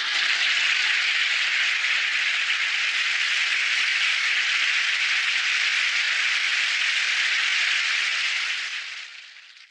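Studio audience applauding steadily after a song-and-dance number, fading out near the end.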